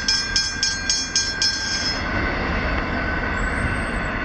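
Westinghouse hybrid level-crossing bell striking about four times a second, then stopping about a second and a half in as the crossing deactivates. The passing freight train's rumble goes on after the bell stops.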